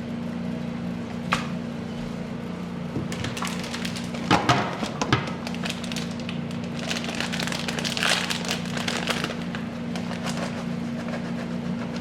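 Cooking ingredients being handled and added to a crockpot: a run of clicks, knocks and crinkly rustling, loudest about four to five seconds in, over a steady low hum.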